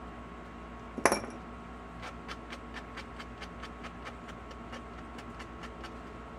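One sharp clack about a second in as a craft knife is set down on the table. Then a run of quick, even rubbing strokes, about four to five a second, as a sanding block works over a small epoxy resin cat figurine.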